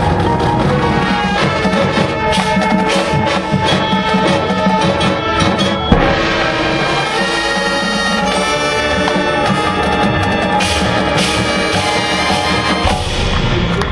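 High school marching band playing, with brass chords over drums and a sharp percussion hit about six seconds in.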